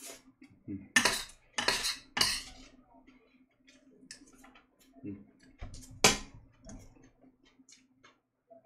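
Eating utensils knocking and scraping against a dish during a meal: three sharp clacks in quick succession about a second in, then lighter clicks and taps, and another sharp clack about six seconds in.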